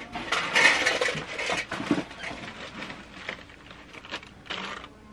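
Cardboard box and paper packing rustling and crinkling as it is handled, loudest in the first two seconds, then scattered light knocks and clicks.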